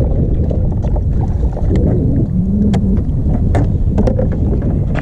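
Heavy wind rumble on the microphone, with scattered small clicks and a brief low hum about two and a half seconds in.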